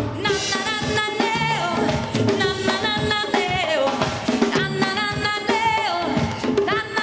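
Live rock-pop band playing: a woman sings a wavering, held melody over drum kit, electric guitars and keyboards.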